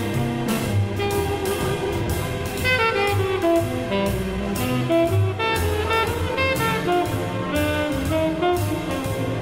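Background instrumental music with a melody over a steady beat.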